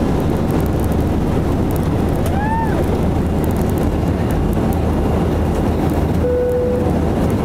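Airbus A321 jet engines running with a steady, even noise and a deep hum underneath. About two and a half seconds in, a brief tone rises and falls, and near the end there is a short steady tone.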